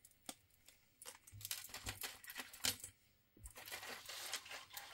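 Rustling and light clicking of silver earrings being handled, in two spells of about two seconds each with a single click just before.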